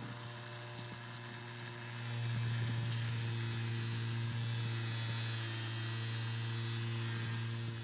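Ryobi 6-inch bench grinder running with a wire wheel, its motor giving a steady hum, while a steel bar is pressed against the spinning wire brush to clean it. The scratchy hiss of the wire brush and the hum get louder about two seconds in.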